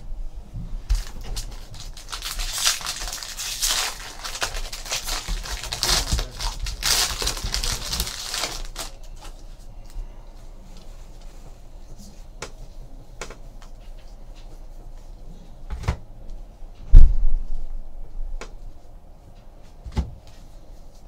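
Foil wrapper of a Bowman Draft baseball card pack being torn open and crinkled for several seconds, followed by scattered light clicks and knocks and a loud thump about 17 seconds in.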